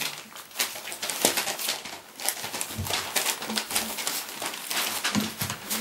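Three-and-a-half-week-old Dalmatian puppies playing: short squeaks and grunts among busy scuffling and scratching of paws on fleece bedding and newspaper.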